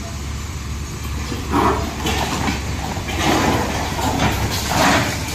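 JCB backhoe loader's diesel engine running steadily while it knocks down a building, with bursts of rattling and crashing debris about a second and a half in, after three seconds and near the end.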